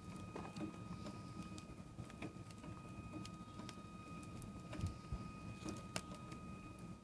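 A wood fire crackling, with irregular sharp pops and snaps, over a faint steady high whine.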